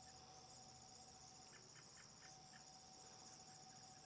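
Faint chorus of insects chirring: a steady high-pitched trill with a quicker pulsing over it, and a thin steady hum beneath. A few faint ticks about halfway through.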